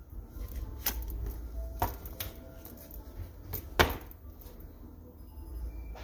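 A bowie knife being drawn from its leather sheath and handled on a kitchen countertop: a handful of sharp clicks and knocks, the loudest a little under four seconds in, over a low rumble.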